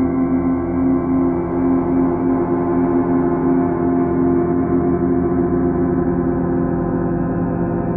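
Steady, deep drone of many layered sustained tones, presented as NASA's recorded sound of the Sun: the Sun's vibrations made audible.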